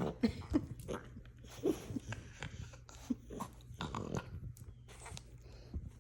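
French bulldog puppy making short, pitched grunting noises and snuffles while play-biting, with scattered small clicks.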